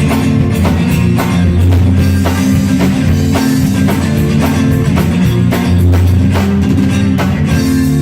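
A song played by a band with guitar and drum kit over a steady bass line, the drums keeping a steady beat.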